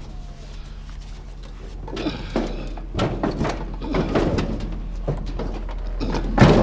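Scrap metal being handled and loaded into a vehicle: scattered knocks and clatters, with a loud bang near the end, over a steady low hum.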